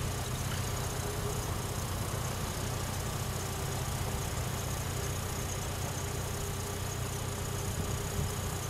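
Standing electric trains at a platform, including a VR Sr2 electric locomotive: a steady low hum with a faint steady whine above it, the sound of their onboard equipment running while they wait.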